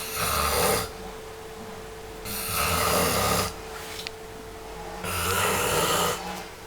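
A person snoring in deep sleep: three snores about two and a half seconds apart, over a faint steady hum.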